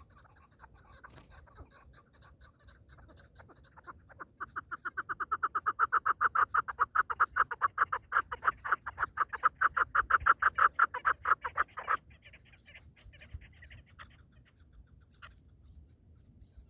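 Partridge calling: a rapid run of clucking notes, about six a second, that builds up and stays loud, then stops abruptly, with fainter calls before and after.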